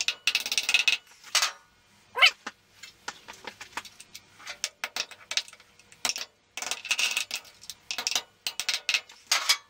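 Workshop handling noises as a wheel weight is fitted to a motorcycle rim: scattered clicks, taps and short scrapes. Brief wavering squeaks come about two seconds in and again near the end.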